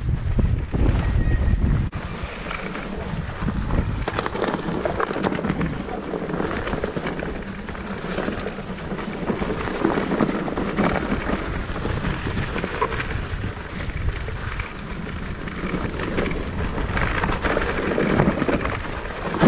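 Mountain bike rolling down a trail, its tyres running over fallen leaves and dirt, with clicks and rattles from the bike over bumps. Wind on the camera's microphone is loudest for the first two seconds, then eases.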